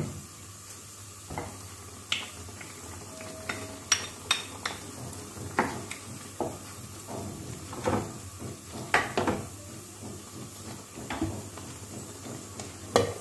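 Spatula stirring thick prawn gravy in a nonstick kadai, with irregular knocks and scrapes against the pan over a faint steady hum.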